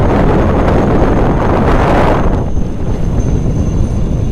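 Strong wind buffeting the microphone: a heavy rumble with a hiss that falls away about two and a half seconds in, leaving mostly the low rumble.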